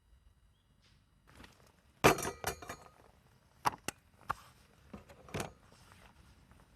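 A sharp clatter about two seconds in, followed by half a dozen lighter clinks and knocks of hard objects being handled, some briefly ringing.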